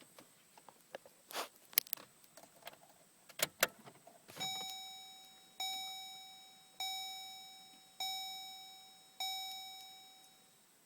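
Keys jangling and clicking, then the Chevy Colorado's warning chime dings five times, about one ding every 1.2 seconds, each fading away.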